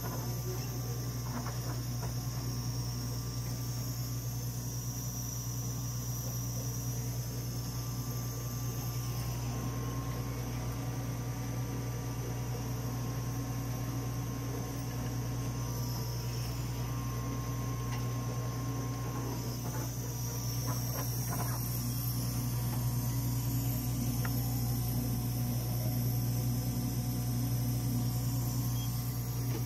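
Steady low hum with a high hiss from a running Dimension RxL clinical chemistry analyzer's fans and electronics, with a few faint clicks.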